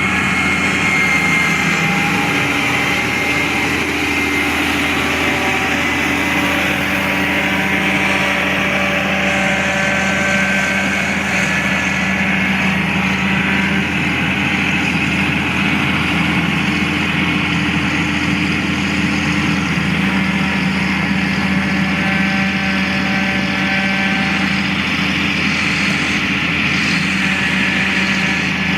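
Heavy construction machine's diesel engine running steadily, with a constant drone and only slight shifts in pitch.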